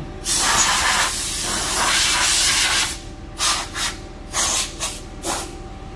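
Compressed-air blow gun blasting chips off the tooling in a CNC lathe: one long hiss of about three seconds, then a quick series of short blasts.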